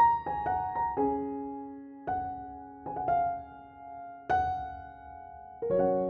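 Gentle solo piano playing a slow melody: single notes and small clusters struck a few at a time, each left to ring and fade before the next.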